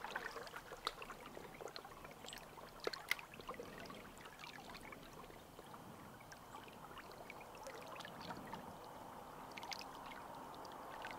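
Faint, steady flow and trickle of a small shallow stream, with a few light ticks scattered through it, the clearest about three seconds in.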